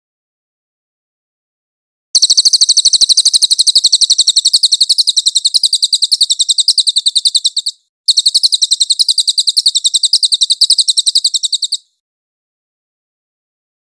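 Crested shrikejay (cililin) calling in a rapid, even, high-pitched rattling trill, in two long bouts: one starting about two seconds in and lasting nearly six seconds, then, after a brief break, another of almost four seconds.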